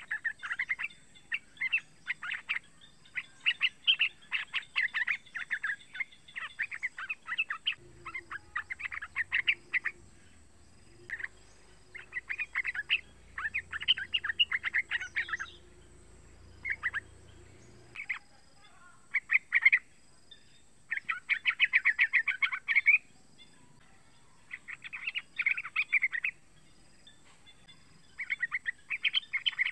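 Young yellow-vented bulbul (trucukan) calling: phrases of rapid chirping notes, each lasting a second or two, with short pauses between.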